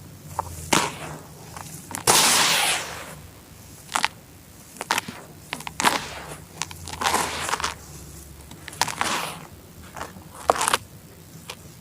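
Pieces of charcoal being crushed and crumbled: irregular sharp snaps mixed with longer gritty crunches, the loudest crunch about two seconds in.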